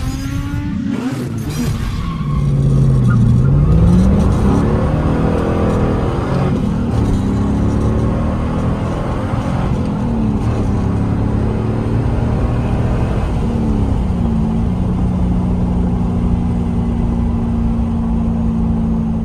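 2002 Chevrolet Camaro SS's 5.7L LS1 V8 running through a Flowmaster exhaust while driven. Its pitch falls and rises several times as it revs and shifts, then holds steady near the end.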